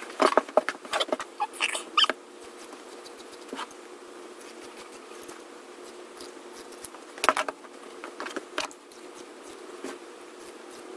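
Scissors snipping through shirt fabric: a quick run of cuts in the first two seconds, then two more bursts of cuts about seven and eight and a half seconds in, with softer fabric handling between.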